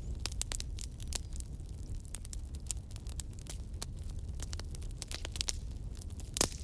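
Log fire burning, crackling with frequent sharp pops over a low steady rumble, with one louder pop near the end.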